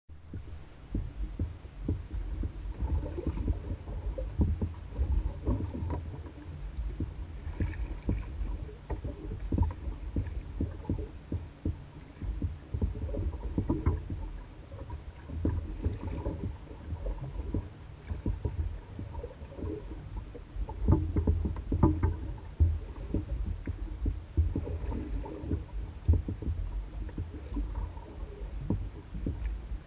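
Small waves lapping and knocking irregularly against the hull of an Old Town Guide 119 canoe as it bobs on the lake, over a steady low rumble.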